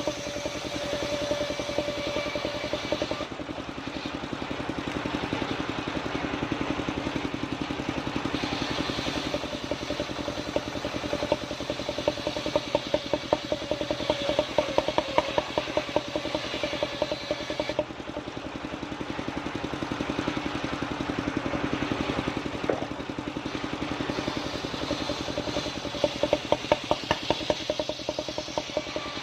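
Engine-driven circular saw rig of a mobile sawmill running steadily, its blade cutting sengon timber, with the hiss of the cut rising and falling in stretches and rapid ticking in two stretches.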